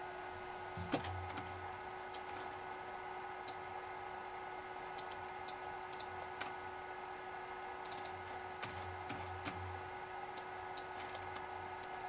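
Sony MP-F75W floppy drive reading a disk: scattered sharp clicks from the drive mechanism, with a low whir about a second in and again from about eight to nine and a half seconds. The disk mounts at once and reads well.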